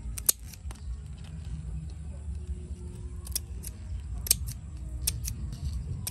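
Steel kitchen scissors snipping through whole beetles: a series of sharp, crisp snips, several in quick pairs.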